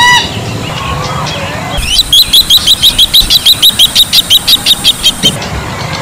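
Bronze-winged jacana calling: a short loud call at the start, then a fast run of sharp, high notes, about eight a second, for some three seconds before it stops abruptly. Other birds call faintly in the background.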